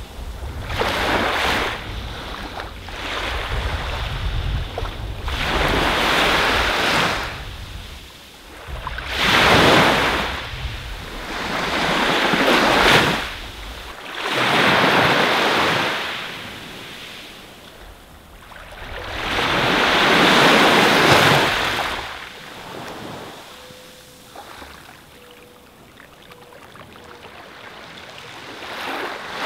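Small waves breaking and washing up onto a sandy beach, the surf swelling and falling back about every four seconds. Wind rumbles on the microphone in the first half.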